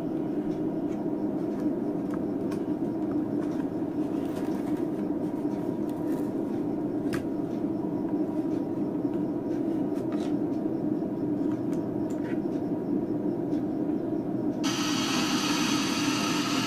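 Powered home-theatre subwoofer amplifier putting a steady low noise out through its speaker, with a few faint clicks as wires are handled. Near the end a louder hiss joins as the amplifier's audio input jacks are touched.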